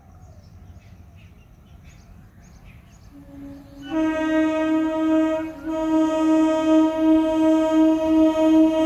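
Horn of an approaching Indian Railways EMU local train, a long steady blast that starts about three seconds in with a brief break partway through and keeps going. Faint bird chirps are heard before it.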